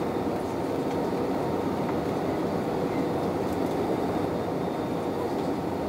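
Jet airliner cabin noise at a window seat: the steady drone of the engines and rushing airflow, with a faint steady hum through it.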